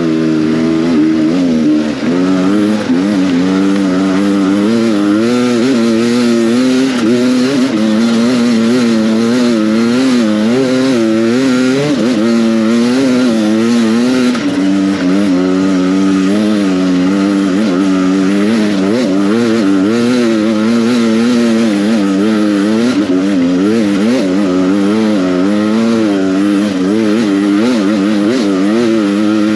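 Beta 300 RR two-stroke enduro motorcycle engine running hard, its pitch rising and falling about once a second with constant on-and-off throttle.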